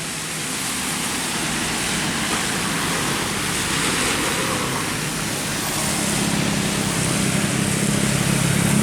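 Road traffic noise, with a large vehicle's engine drone growing louder from about six seconds in as it approaches.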